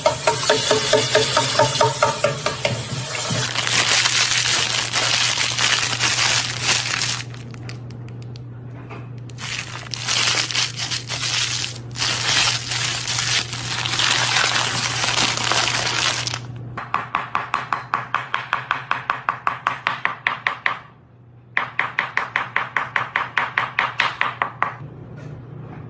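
A series of different noisy sounds in turn: a rustling, crinkling noise with short breaks, then a fast even run of clicks, about three or four a second, with a brief pause partway through.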